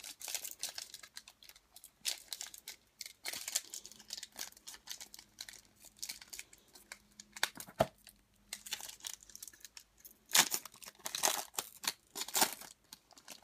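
Foil trading-card pack wrappers crinkling and being torn open by hand, in irregular crackling rustles, loudest in a few bursts near the end.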